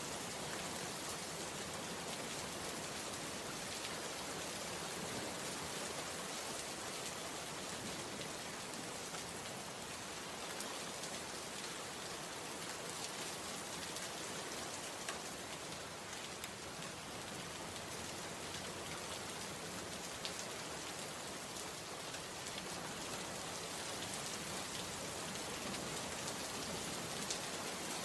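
Steady rain falling, an even hiss with scattered sharper ticks of individual drops striking.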